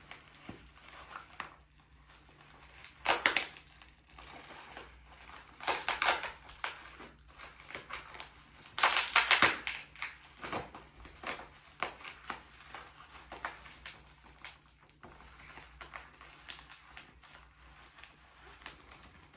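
Plastic packaging wrap crinkling and crackling as it is squeezed and pulled at by hand, with louder bursts of crackling about three, six and nine seconds in.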